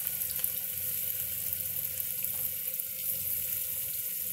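Sliced onions sizzling steadily in hot refined oil in a pressure cooker, a continuous hiss with small crackles; the onions are still pale, early in frying toward a light pink.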